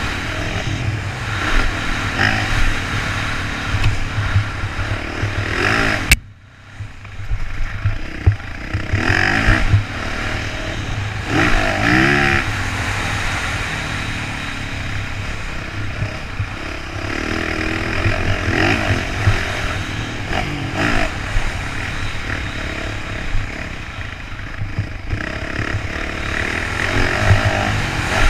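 Motocross dirt bike engine revving up and down as it is ridden along the track, heard from the rider's helmet camera with constant wind rumble on the microphone. The sound drops away suddenly about six seconds in, then comes back.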